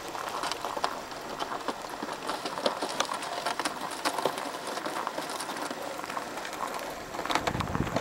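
Footsteps crunching on snow-covered lake ice, a string of short irregular crunches, with a low rumble joining near the end.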